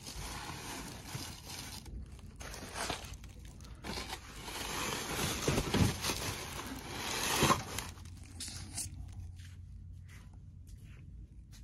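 Paper piñatas with tissue-paper fringe rustling and scraping against each other and the shelf as a gloved hand handles and pushes them into place. It is loudest a few seconds in, then dies down to lighter rustles.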